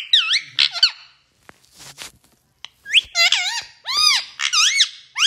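Pet parrot giving high, squeaky calls that swoop up and down in pitch: a short run at the start, a pause with a few faint clicks, then a quick string of calls from about three seconds in.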